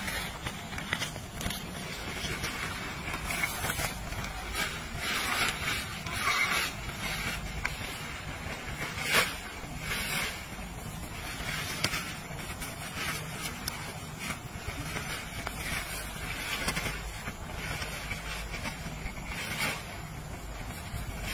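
Pop-up dome tent being unfolded and raised: the fabric rustles and scrapes in short bursts and the frame clacks, with one sharper clack about nine seconds in. Steady wind noise buffets the microphone underneath.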